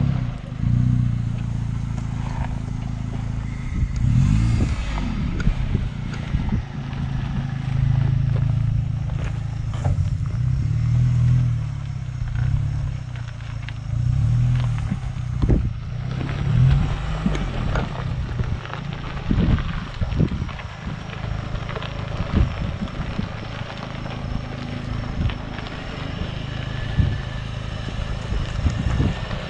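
Off-road 4x4's engine crawling at low revs over a rough trail, its pitch rising and falling as it is worked, with scattered knocks and clatter from the body, suspension and stones underneath.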